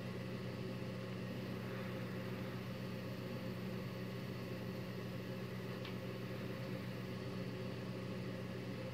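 Steady low hum with a faint hiss, unchanging throughout, and one small click about six seconds in.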